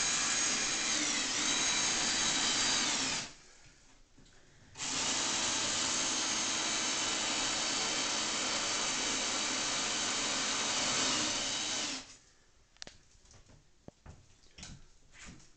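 Electric drill running in two runs: about three seconds, then after a short pause about seven seconds, its whine rising in pitch as it spins up at the start. A few light clicks and knocks follow.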